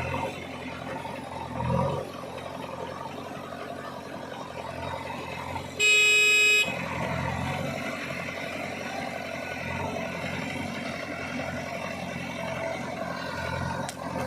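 Diesel engines of a backhoe loader and tractor running steadily at a loading site, with one short vehicle horn honk about six seconds in, the loudest sound.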